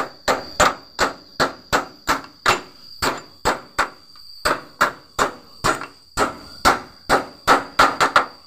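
A steel hammer striking the pin of a car door hinge again and again, about twenty sharp metal-on-metal blows at roughly two a second, each with a short ring, coming quicker near the end.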